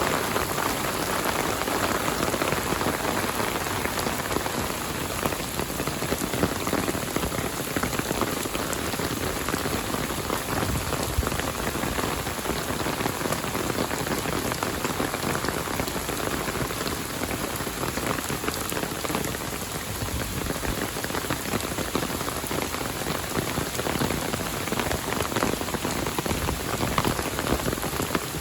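Heavy rain falling steadily: a dense, even hiss of countless drops hitting the surfaces around.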